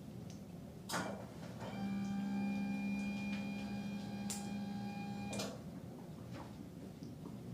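A small electric motor whirs steadily for about four seconds. A click comes just before it starts, and it stops with another click.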